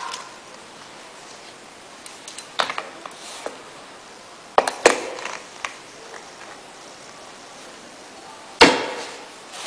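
Scattered knocks and clicks of tools and parts being handled on a workbench: a few light taps, two sharp knocks about five seconds in, and the loudest knock, with a short ring, near the end.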